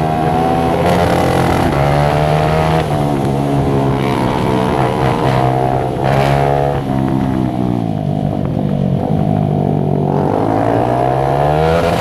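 Single-cylinder motorcycle engine under way, its note climbing and dropping with throttle and speed: it falls away for a few seconds past the middle, then rises again near the end.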